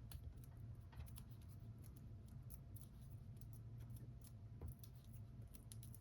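Faint, scattered small clicks and ticks of paper crafting: Stampin' Dimensionals foam adhesive squares being peeled from their backing sheet and pressed onto a cardstock label.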